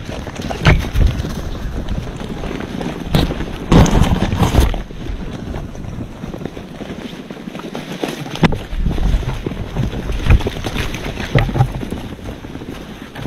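Wind buffeting the microphone as a steady low rumble, with scattered knocks and rustles and a louder rough burst about four seconds in.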